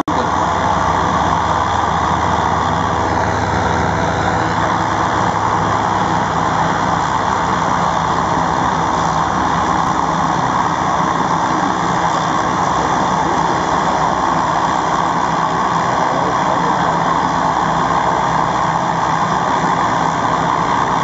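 An OV-10 Bronco's twin Garrett T76 turboprop engines running steadily on the ground, the turbine and propeller sound unbroken and loud.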